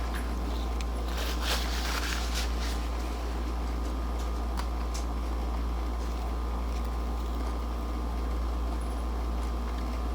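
A steady low hum runs under a bite and chewing of crunchy home-fried fish, with a short crackly burst about a second and a half in and a few small clicks.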